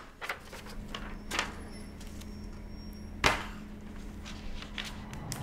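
A steady low hum broken by a few short knocks, the loudest about three seconds in.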